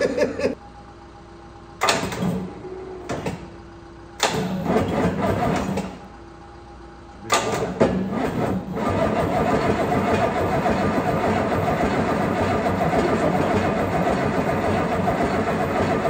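Scania V8 diesel being started for the first time after its swap into a Volvo FH12, the starter jumped by hand. It cranks in three short bursts of a second or two each, then from about nine seconds in it turns over steadily without a break.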